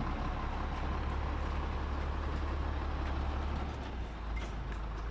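Steady low rumble of a running engine, easing briefly about four seconds in.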